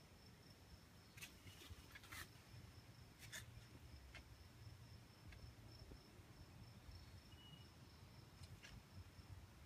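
Near silence: faint outdoor ambience with a steady high-pitched hum and a few short ticks, most in the first few seconds and one near the end.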